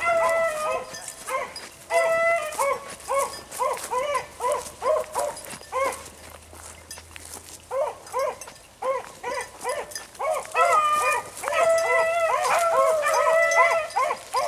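A pack of beagles baying on a rabbit's track: quick repeated chop barks overlapped by long drawn-out bawls from more than one hound. The cry thins out for a couple of seconds midway, then builds again and is loudest near the end.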